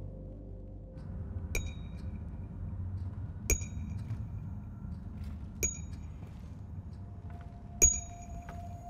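A metal finger ring tapping against a drinking glass about once every two seconds: four sharp clinks, each with a short bright ring, the last the loudest. A low rumble runs underneath, and a steady held tone comes in near the end.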